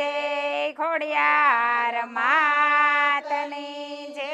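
A group of women singing a Gujarati devotional chant together, in long held notes that bend in pitch, with short breaths between phrases.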